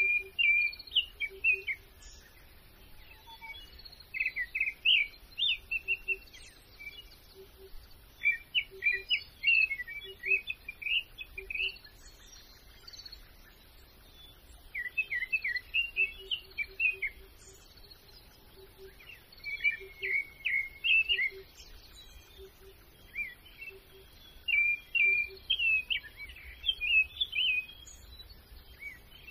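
A songbird singing phrases of rapid, high chirps, one phrase every few seconds, over faint outdoor background noise.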